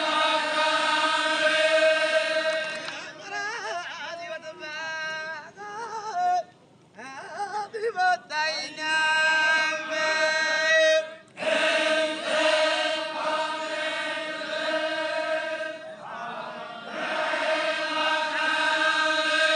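Chogan, the Zikri Baloch devotional chant: many men's voices singing together in long, held notes. From about three to six seconds in the voices waver and bend in pitch, the sound nearly drops out briefly around seven seconds, then the held group chant returns.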